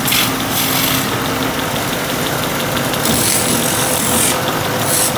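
Wood lathe running with a steady motor hum while a hand-held turning chisel cuts a spinning wooden spindle, giving a hissing scrape that comes and goes, strongest at the start and for about a second from three seconds in.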